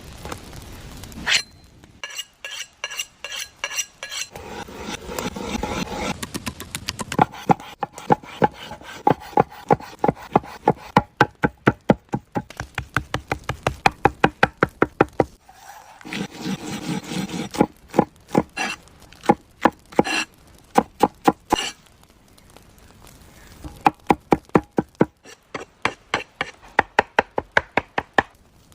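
Knife chopping rapidly on a wooden cutting board, about three or four strokes a second, in runs broken by short pauses.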